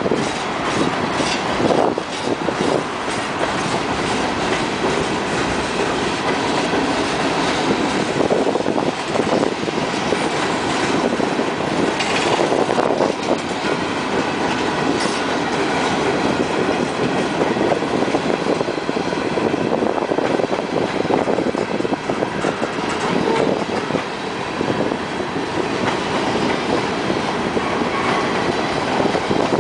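Freight train cars rolling past at close range: a steady rumble of steel wheels on the rails, with scattered sharp clicks and knocks as the wheels cross rail joints, several of them about the start.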